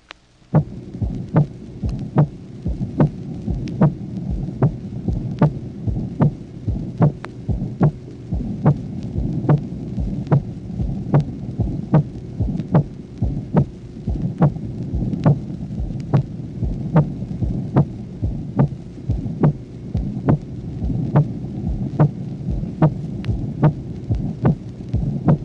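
Recorded human heart sounds beating regularly, about one beat every 0.8 seconds, over a steady low hum. Each beat has a first sound followed by a sharp, drum-like second heart sound. That accentuated aortic component of the second sound is the sign of arterial hypertension.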